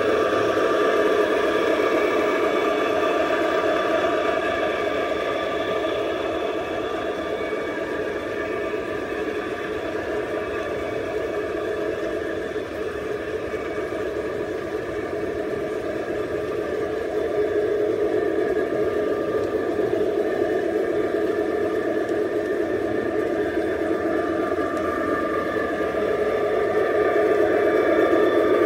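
Large-scale garden-railway model freight train rolling past, its locomotives' motors and gearing and the cars' wheels on the track making a steady whir with a mechanical hum. It grows louder near the end as a diesel locomotive comes by.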